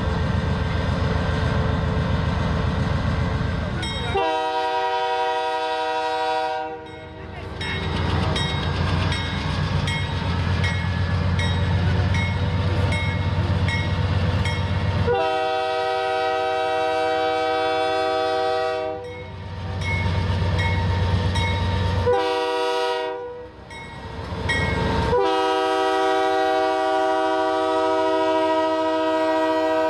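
Union Pacific diesel locomotive's air horn, a chord of several tones, sounding the long-long-short-long grade-crossing signal: two long blasts, a short one, then a long one that runs on near the end. Between the blasts, the locomotive's diesel engine and the freight train make a low rumble as they approach and pass.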